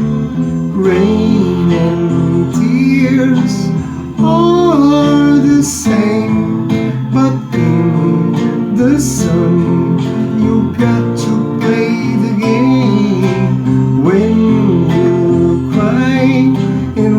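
Music: acoustic guitar strummed in a slow ballad, with a wavering melody line over the chords.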